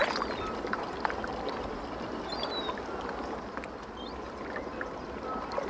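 Gentle lapping of river water: a soft, steady wash with a few faint ticks.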